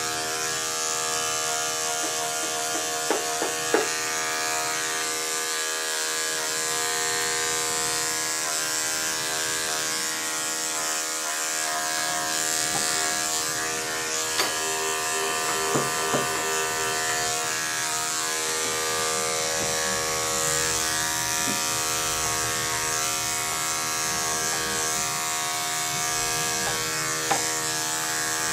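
Corded electric dog-grooming clippers running steadily, a constant motor buzz as the blade is worked through a dog's coat, with a few brief clicks here and there.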